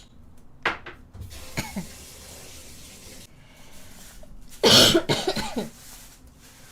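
A young woman coughing: two short coughs about a second apart, then after a pause one hard, loud cough with a rasping tail, about four and a half seconds in. It is a persistent cough that strains her stomach muscles.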